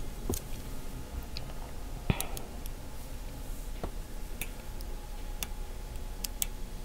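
Hobby knife blade cutting tiny clamp parts free from a photo-etched brass fret laid on a plastic sheet: irregular small, sharp clicks as the blade presses through the thin attachment gates.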